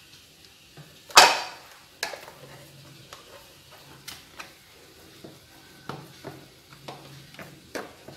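Spatula scraping batter off a hand mixer's metal beaters over a stainless steel bowl, with scattered light taps and clinks. One sharp knock about a second in is the loudest.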